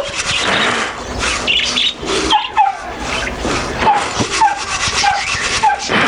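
Small cage birds chirping, with a run of short repeated call notes in the second half, over rustling and a few sharp clicks.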